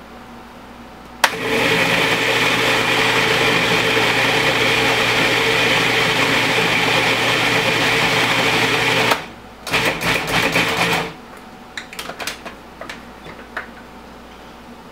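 Countertop food processor chopping salsa vegetables: the motor starts suddenly and runs steadily for about eight seconds, then cuts off and gives a couple of short pulses. A few light clicks and knocks follow as the bowl is handled.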